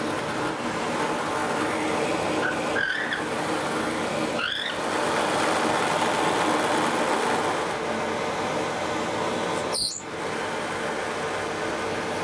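Drill press motor and dust extraction running steadily while holes are drilled in wood, with two short rising squeals of the bit cutting. The sound breaks off sharply three times.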